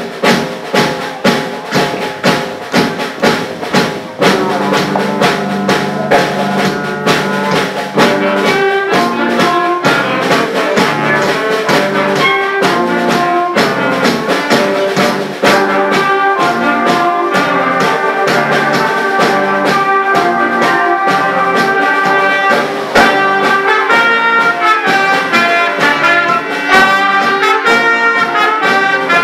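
School concert band playing: flutes, clarinets, alto saxophone, trumpets and trombone. For about the first four seconds only a steady beat is heard, then the whole band comes in with held notes and melody.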